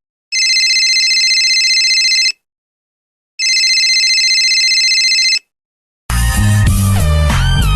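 Telephone ringing sound effect: two rings of about two seconds each with a short pause between, a high trilling ring. Guitar music starts about six seconds in.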